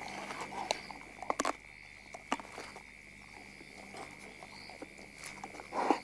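Caracal feeding on its fresh kill: irregular crunching, cracks and snaps of biting and chewing, the loudest near the end. Under it runs a steady, high chirring of night insects.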